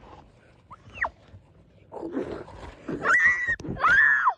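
A boy howling in a high voice, dog-like: a short falling yelp about a second in, then two long howls near the end, the first held steady and the second swelling and falling away.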